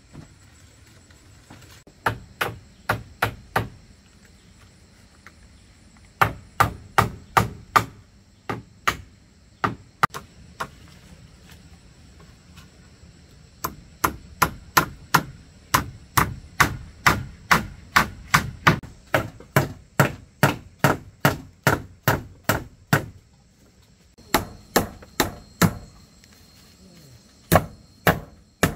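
Steady, evenly spaced blows of a hand tool on wood, about two to three a second, in several runs with short pauses between them; the longest run lasts about nine seconds.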